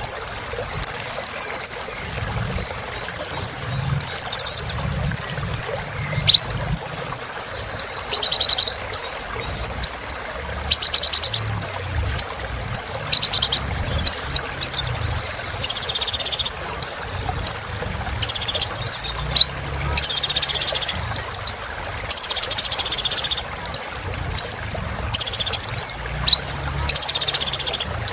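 Kolibri ninja sunbird singing a fast, continuous song. It mixes short sharp high chirps, quick rattling trills and harsh buzzy bursts.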